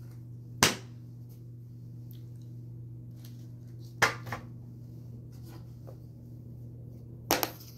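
Three short, sharp clacks, about three seconds apart, of small objects such as a hairbrush being handled and put down, over a steady low hum.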